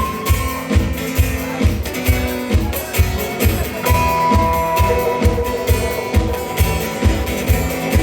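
Instrumental music with guitar over a steady kick-drum beat, no singing.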